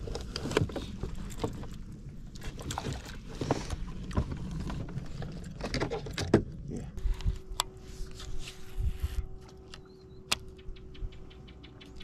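Knocks, clicks and rustling from handling a freshly landed largemouth bass on a fishing boat's deck. About seven seconds in these give way to a steady hum, with a run of quick, even ticks near the end.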